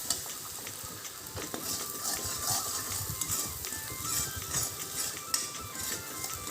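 Chopped onion and green chillies sizzling as they fry in butter in a karahi, with a spatula stirring and scraping against the pan in irregular strokes.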